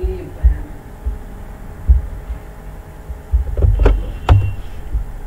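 Irregular low thumps on the microphone, with two sharp clicks half a second apart near the end, over a faint steady electrical hum.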